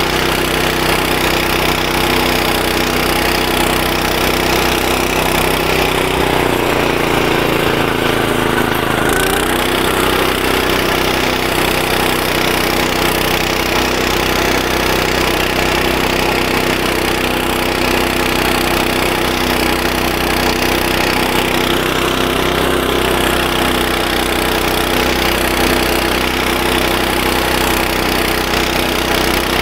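Walk-behind tractor's single-cylinder engine running steadily at working revs, driving a rotary mower through tall grass. About seven seconds in, the engine note briefly dips and wavers, then settles again.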